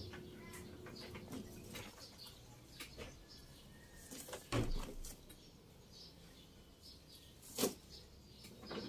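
Leaves and branches of a potted bilimbi tree rustling as it is gripped and shaken by hand, with two louder rustles, one about four and a half seconds in and a sharper one about seven and a half seconds in.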